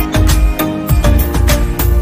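Loud background music with a steady beat and heavy bass.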